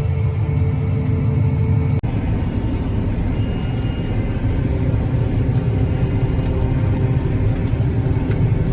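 Steady low rumble of a vehicle engine running, broken by a brief dropout about two seconds in, after which a similar low rumble carries on.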